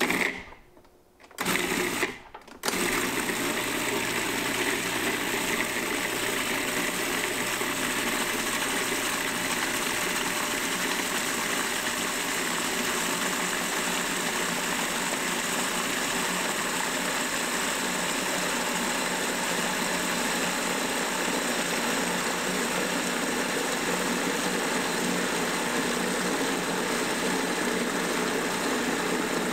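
Food processor motor running: two short bursts in the first couple of seconds, then a steady run as the blade purées roasted apple, carrot and onion with stock.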